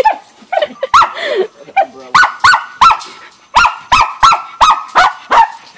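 Schnauzer barking in a rapid string of high, sharp yaps, about two to three a second, as it attacks a patio umbrella.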